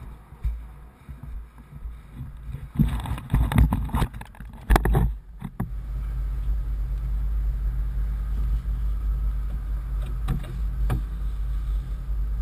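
Wind and handling noise buffeting a helmet-mounted camera, with loud rustling and knocks a few seconds in. From about five seconds in, an engine idles with a steady low rumble.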